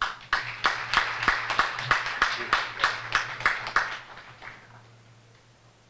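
Audience applauding, a scattering of separate claps that thins out and dies away about four seconds in.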